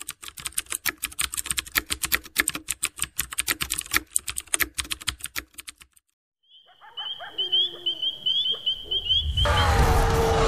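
Fast, irregular typing clicks from a keyboard sound effect for about six seconds. After a short silence comes a run of short, high, rising chirps, then a loud rumbling swell begins near the end.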